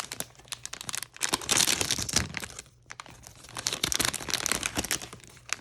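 Blind-box toy packaging being opened by hand: crinkling, rustling and tearing with many small clicks, in two busier stretches about a second and four seconds in.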